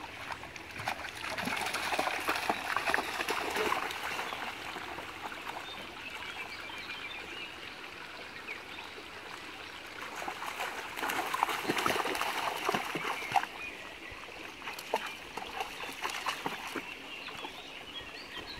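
A dog wading and splashing in a shallow, stony stream, over the steady trickle of running water. The splashing comes in louder spells about a second in and again around eleven to thirteen seconds.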